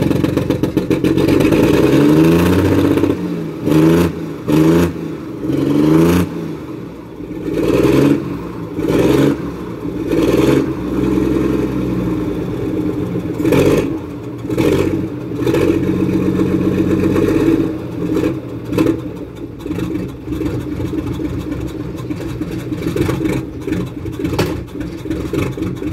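Pegaso Cabezón truck's diesel engine running and revved again and again, each blip of the throttle rising and falling in pitch, settling into a steadier run near the end.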